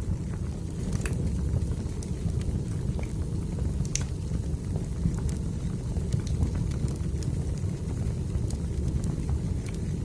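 Wood fire in a fireplace crackling over a steady low rumble, with scattered sharp pops; the loudest pop comes about four seconds in.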